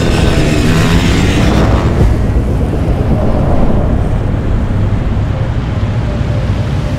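A motor vehicle driving at speed, its engine running under a heavy rush of wind, with the engine pitch sliding in the first couple of seconds.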